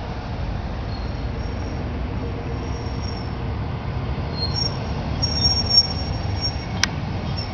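Police vehicles and a lifted Jeep driving slowly past in a procession: a steady rumble of engines and tyres. A single sharp click near the end.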